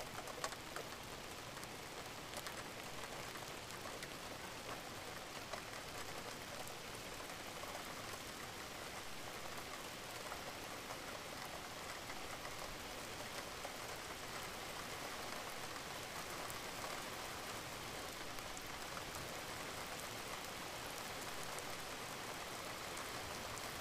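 Rain falling: a steady hiss with scattered faint drop ticks.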